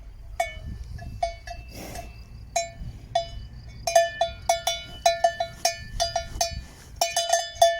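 A cowbell clanking in uneven strokes, each ringing briefly on the same note. The clanks come faster and closer together from about four seconds in.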